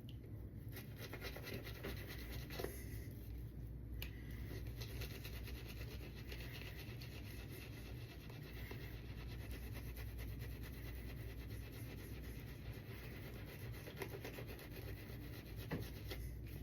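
Shaving brush with a 26 mm S2 Innovator knot being worked through lather: faint, steady scratching and rubbing of the bristles.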